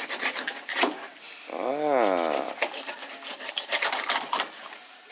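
A knife sawing and chopping through a whole rock snapper on a cutting board, cutting it into steaks: a fast run of rough scraping, crunching strokes through scales and bone. A drawn-out 'ah' rises and falls about two seconds in.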